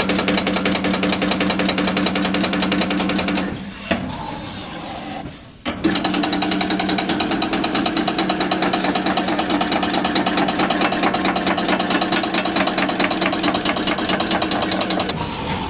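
Alloy milling cutter slotting an aluminium profile: a dense, rapid chatter over a steady hum. It dies down about three and a half seconds in and starts again with a sharp click about two seconds later.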